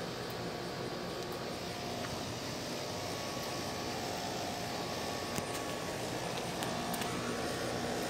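Nordyne JS5BD-060K 5-ton outdoor air-conditioner condensing unit running: the condenser fan's steady whoosh with a hum from the compressor underneath. A couple of light ticks come around the middle.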